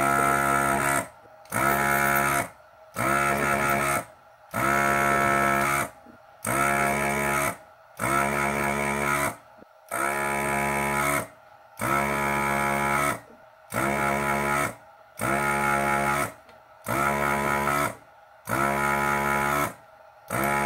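Hakko FR-301 desoldering gun's vacuum pump humming in repeated bursts of about a second, a dozen or more in a row, each trigger pull sucking the molten solder off a capacitor lead. The pitch holds steady within each burst.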